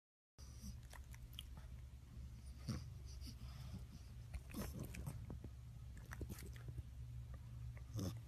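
French bulldog sniffing and snuffling with its nose right at the microphone: a string of irregular short sniffs and snorts over a steady low hum.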